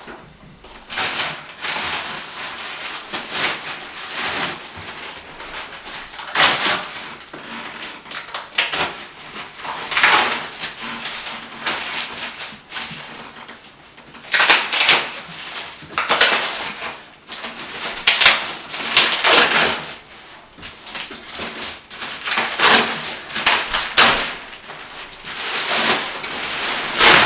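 Clear plastic wrapping on a rolled mattress rustling and crinkling in irregular bursts as it is pulled and handled.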